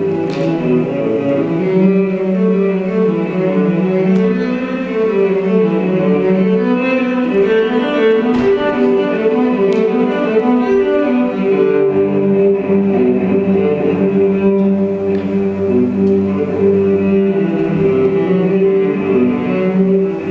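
Instrumental music of bowed strings, a cello to the fore, playing long held notes.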